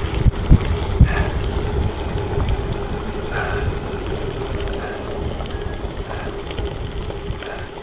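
Wind buffeting the microphone of a camera on a moving bicycle, gusting hardest in the first second or so, over a steady hum and scattered crackles of the ride.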